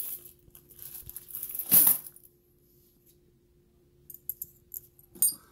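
A clear plastic bag full of coins crinkling and rustling as it is handled, loudest a little under two seconds in. A few light clicks come near the end.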